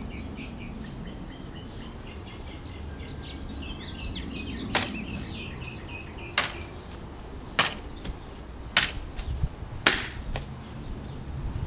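A shirasaya sword slicing through a rolled tatami mat on a stand: five loud, sharp cuts about a second apart in the second half, with a few lighter knocks among the last ones. Birds chirp in the first half.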